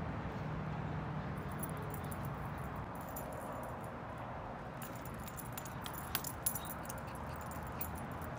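Small metal pieces jingling in quick, irregular light clinks, sparse at first and busier in the second half, over a steady low background rumble.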